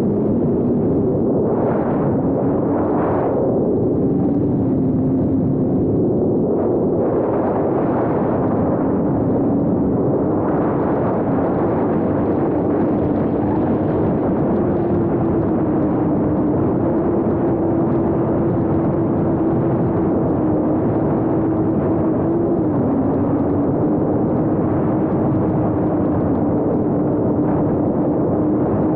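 The motors and propellers of a seven-inch FPV quadcopter, heard on its onboard camera's microphone: a steady hum with a slowly shifting pitch under heavy wind noise, and two short throttle surges about two and three seconds in.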